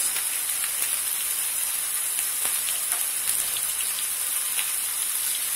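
Oil sizzling and crackling in a frying pan of fried onions with ground chili and turmeric just added, a steady hiss with scattered small pops.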